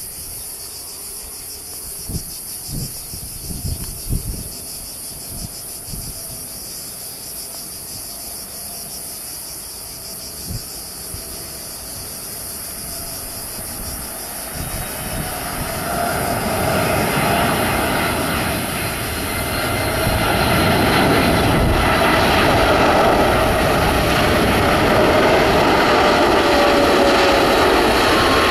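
A Boeing 747-8's four GEnx jet engines on final approach, faint at first and then growing loud over the second half as the airliner nears, with whining tones that fall slightly in pitch near the end. Insects buzz steadily in the first half, with a few low thumps in the first few seconds.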